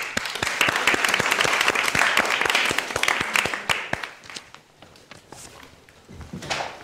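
Audience applause, many people clapping, dying away about four seconds in.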